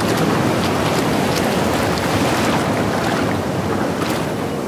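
Sea waves washing and surging, with wind: a steady rushing noise.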